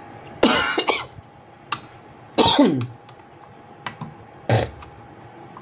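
A man coughing three times, about two seconds apart; a lingering cough that keeps coming back.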